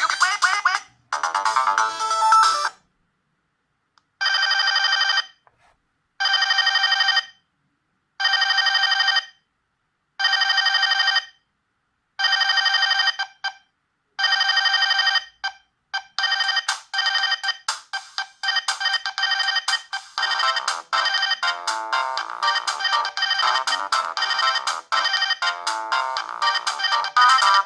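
Panasonic G60 mobile phone playing its built-in ringtones one after another: a short melody ends, then after a pause comes a repeating ring of six evenly spaced bursts, each a bit over a second long, followed by a fast tune of quick notes.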